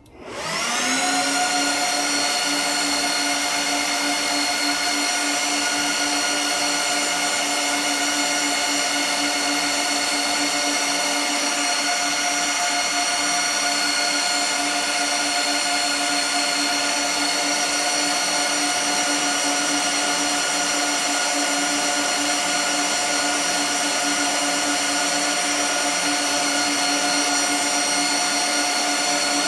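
A motor spinning up within the first second, then running at a steady speed with a constant whine, a sound the uploader calls abnormal.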